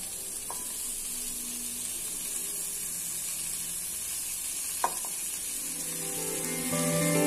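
Vegetables sizzling in oil in an aluminium pressure cooker as more chopped vegetables are dropped in by hand, a steady hiss with a sharp clink about five seconds in. Soft background music comes in near the end.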